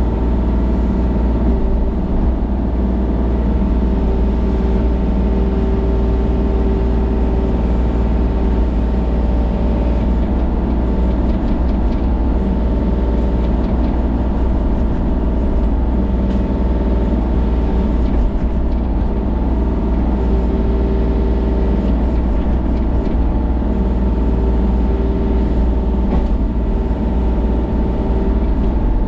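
Kubota compact excavator's diesel engine running steadily at working speed, a constant low rumble with a steady hum of tones over it.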